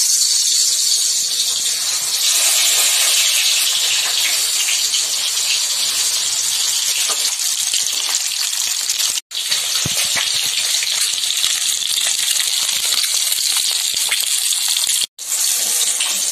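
Whole boiled eggs coated in turmeric and salt frying in hot mustard oil in a karai: a loud, steady sizzle with fine crackling spatters. It cuts out for a split second twice, about nine and fifteen seconds in.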